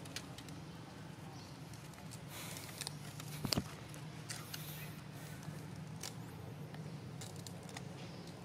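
Scattered light clicks and rustles over a steady low hum, with one sharp knock about three and a half seconds in.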